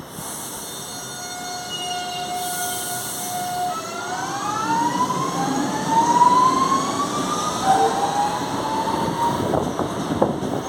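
Electric traction motors of a CPTM Series 2070 train whining as it pulls away. Several steady tones turn, about a third of the way in, into whines that rise in pitch as the train gathers speed and grows louder. A few sharp knocks near the end come from the wheels running over rail joints.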